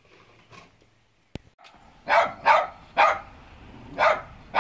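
A dog barking: five short, loud barks in the second half, after a single faint click.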